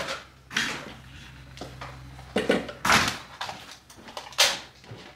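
Kitchen clatter as a blender shake is put together: a plastic blender jar, its lid and small containers knocked and set down on a wooden counter, a handful of sharp knocks, the loudest near the end.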